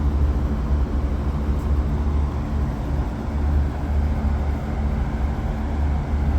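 Steady low hum of running air-conditioning machinery, with a few faint steady tones above the drone.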